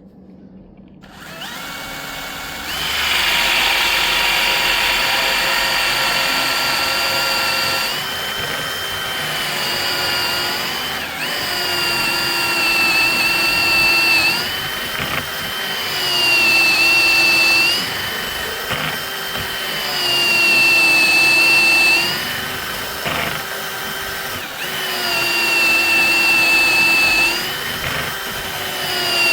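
Electric drill boring a 35 mm hinge-cup hole through a hinge jig into a cabinet door. The motor starts about a second in and then runs with a steady whine. Its pitch and loudness dip and recover every few seconds.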